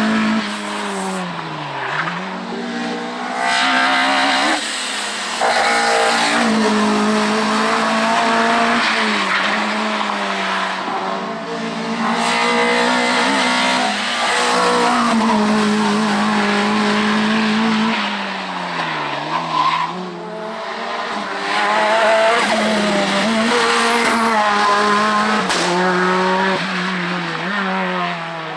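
Racing car engines at full throttle on a hill climb, revving high and changing gear, with the pitch dropping sharply on braking and downshifting twice and sudden changes where one car gives way to another.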